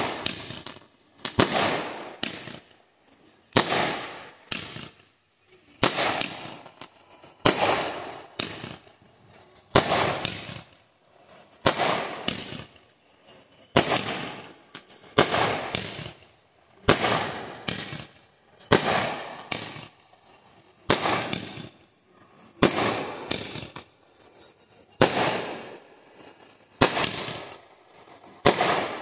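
A 30-shot multicolour crackling aerial fireworks cake firing, its shots going off one after another at about one a second, each bang trailing off in a short crackle.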